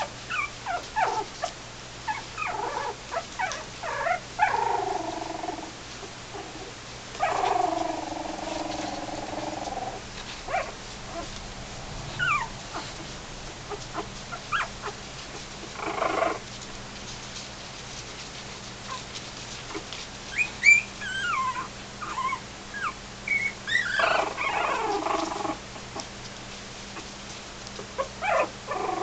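A litter of young puppies whimpering and squeaking. Short, high squeaks come throughout, with a few longer, drawn-out whining cries about 4 and 7 seconds in and a busier run of squeaks near the end.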